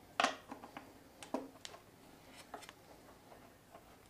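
Scattered light clicks and taps of hands working the plastic tank trim and its fasteners on a motorcycle. The loudest click comes just after the start, with a few smaller ones through the first three seconds.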